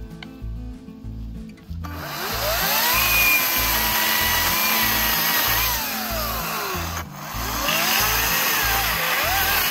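Ryobi 40-volt battery chainsaw cutting fallen wood. Its motor whine rises about two seconds in and holds through the cut, then winds down and stops briefly near seven seconds before speeding up again. Background music with a steady beat plays underneath.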